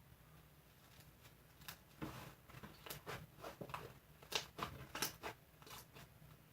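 Irregular light clicks, taps and rustles of things being handled, starting about a second and a half in and dying away near the end.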